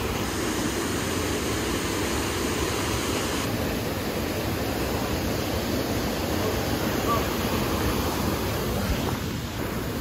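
Steady rush of a fast stream tumbling over rocks: whitewater running past a stone mill wall.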